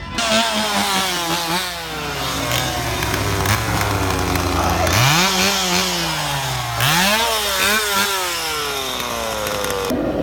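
Chainsaw engine revving up and down over and over, its pitch climbing sharply and sinking again several times.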